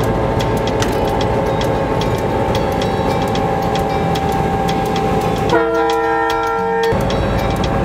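Train running with a steady rumble and a light clicking of wheels on the rails; about five and a half seconds in, its horn sounds one chord-like blast lasting about a second and a half.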